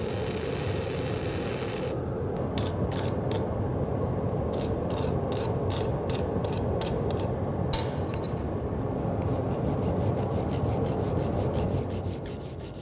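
Self-shielded flux-cored welding arc on 0.035-inch NR-211-MP wire, run at too fast a travel speed, with a steady crackling hiss that stops about two seconds in. Then a wire brush scrubs slag off the bead in short scraping strokes, a few a second, quicker near the end, with one sharp click partway through.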